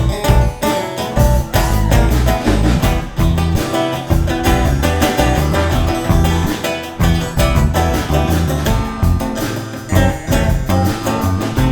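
Instrumental passage of a song: guitar over bass and a steady beat, with no vocals.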